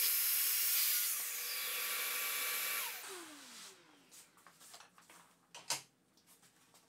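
Festool TS55 FEQ track saw running through a crosscut in plywood, switched off about three seconds in and spinning down with a falling whine. A few faint knocks follow.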